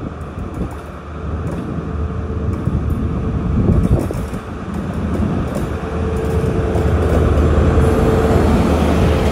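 Class 43 HST diesel power car running in and passing close by at low speed. Its engine's deep rumble grows louder as it nears, and a steady whine joins in about six seconds in as the power car goes past.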